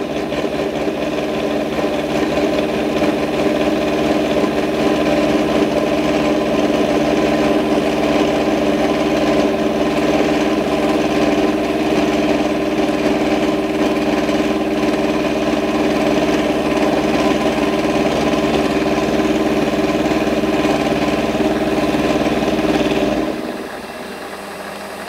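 Lathe spinning an angled milling cutter while it mills a V-slot in a float lock vise jaw fed across on the cross slide. The cut has a steady chatter because the work is not held as rigidly as on a milling machine. Near the end the sound drops and the machine runs on more quietly.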